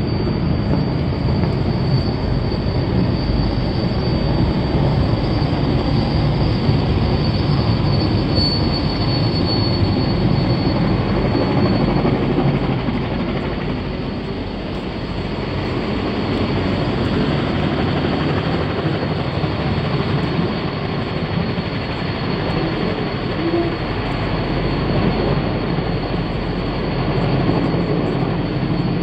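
Helicopter flying low overhead, a steady rotor and engine drone. It eases off somewhat around the middle as the helicopter draws away and grows louder again near the end as it comes back close.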